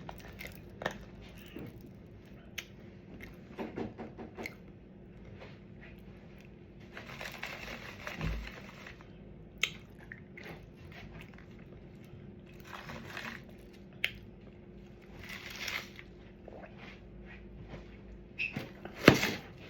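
A person eating close to the microphone: chewing, with scattered sharp clicks and a few brief rustles. The loudest click comes near the end.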